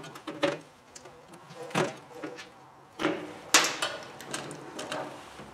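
Scattered clicks and knocks of wire connectors and tools being handled in a stripped microwave oven's sheet-metal chassis, the loudest about three and a half seconds in.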